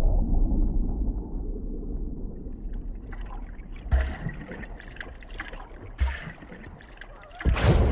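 Muffled underwater ambience: a steady low rumble with faint bubbling and splashing from swimmers kicking at the surface above. Two dull thuds come about four and six seconds in, then a sudden loud rush of sound near the end.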